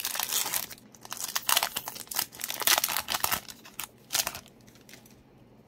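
Foil wrapper of a Pokémon trading-card booster pack being torn open and crinkled by hand, in quick irregular crackles that stop about four and a half seconds in.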